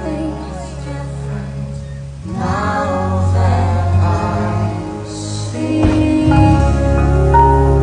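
Fireworks-show soundtrack music with sustained bass notes and singing.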